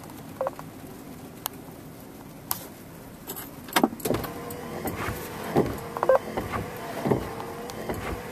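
Vehicle noise: a low steady hum with scattered sharp clicks and knocks, joined about four seconds in by a steady mid-pitched tone.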